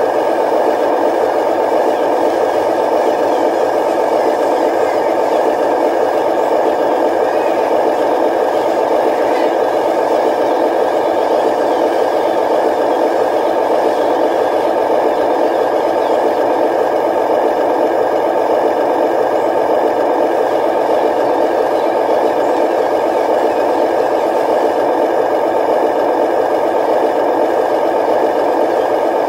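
Radio-controlled dump trucks running, a steady unchanging mechanical sound.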